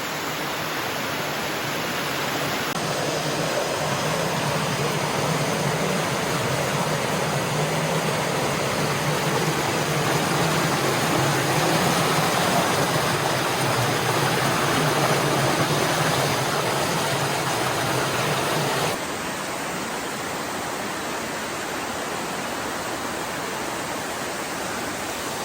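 A large waterfall's water falling and rushing steadily as an even, continuous noise. It becomes a little quieter about three-quarters of the way through.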